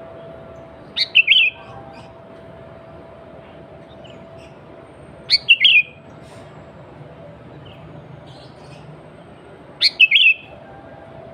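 Sooty-headed bulbul (kutilang) singing its short, quick, chirping phrase three times, about four and a half seconds apart. It is its own natural song, with no mimicry of other species.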